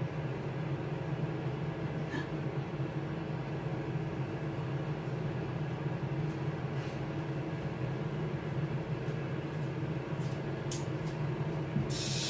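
Steady low hum of a countertop air fryer oven running with its fan on, with a few faint clicks from handling on the counter.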